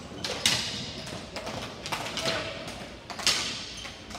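Ball hockey play: a series of sharp knocks and clacks from sticks, the hard ball and the boards, loudest about half a second in and again just after three seconds.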